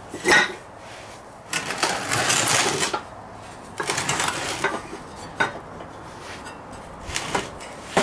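Heavy fire-brick furnace in a steel angle-iron frame being turned around by hand: it scrapes and grinds as it slides, in two longer scrapes, with a few sharp clunks of metal and brick between them.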